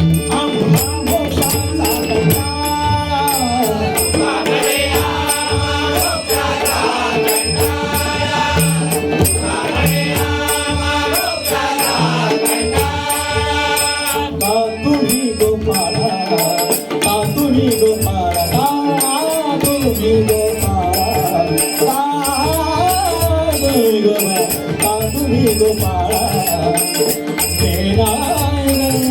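Devotional bhajan music: an abhang sung with a steady drone, drums, and small hand cymbals striking an even rhythm.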